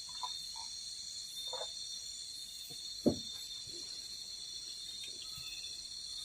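Steady high-pitched chorus of forest crickets and other insects, with a few short faint calls or knocks and one brief sharp thump about three seconds in.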